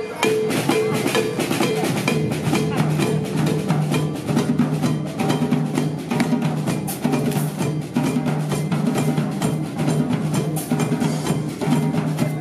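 Street band of saxophones, trumpets, trombones and drums playing a lively number, with a steady pounding drumbeat throughout and low brass coming in strongly about two seconds in.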